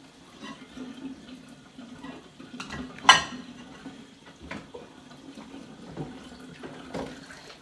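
Dishes and cutlery clinking while water runs from a tap, with one sharp, loud clink about three seconds in.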